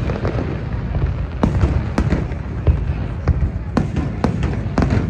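Fireworks shells bursting in a rapid series, about eight sharp bangs roughly half a second to a second apart, over a steady low rumble.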